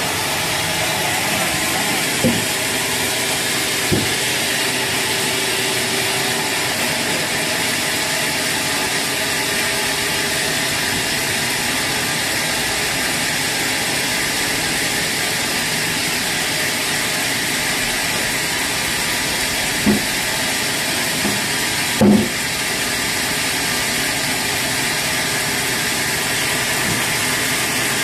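Sawmill machinery running with a steady hiss, broken by a few short knocks, the loudest a double knock near the end.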